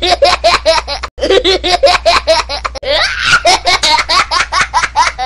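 Two young boys laughing hard and helplessly, in quick repeated high-pitched ha-ha pulses, with a short break about a second in.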